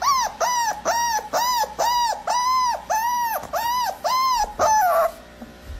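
A run of about eleven high-pitched squeaks, each rising and falling in pitch, about two to three a second, ending in one longer downward slide.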